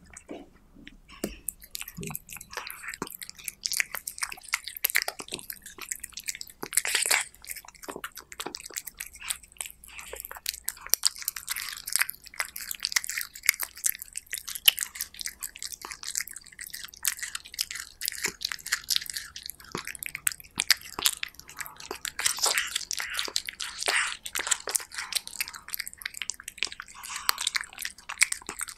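A cat chewing and biting raw meat close to the microphone: a busy, continuous run of quick clicks and smacks from its mouth and jaws.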